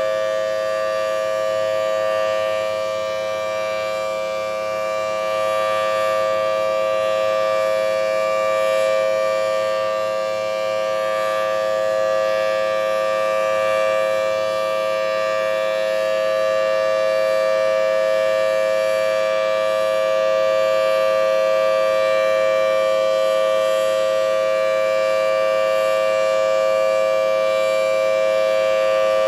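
Single-phase Thunderbolt 1000T civil defense siren sounding a steady, unbroken tone at one pitch, held at the top of its wind-up. It is not rotating, so there is no regular rise and fall as the horn sweeps around, only slight swells in loudness.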